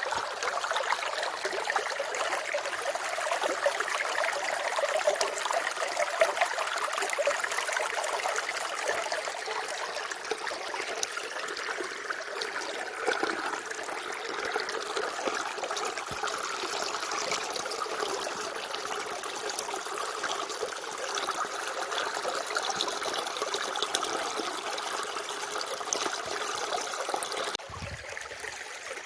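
Water running and trickling steadily, a continuous splashing rush that turns quieter near the end.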